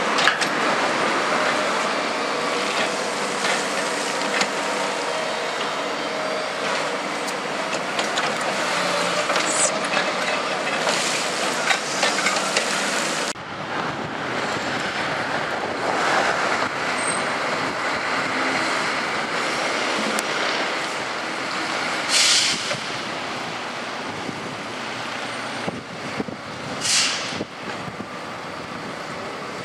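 Diesel engine of a tracked hydraulic excavator running steadily on a construction site. About halfway through the sound changes suddenly to a rougher mix of truck and site noise, with a few short, sharp air hisses.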